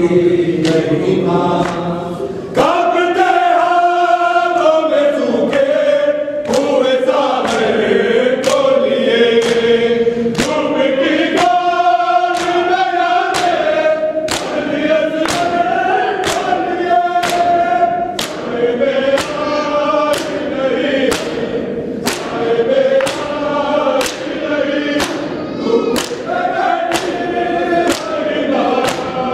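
A group of men chant a nauha, a Shia mourning lament, together, while hands strike bare chests in time (matam). From about six seconds in, the chest slaps come about once a second.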